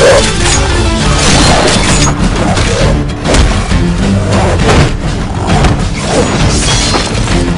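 Loud soundtrack music with animated fight sound effects over it: repeated crashes and booms of a scythe striking and cutting down wolf-like monsters.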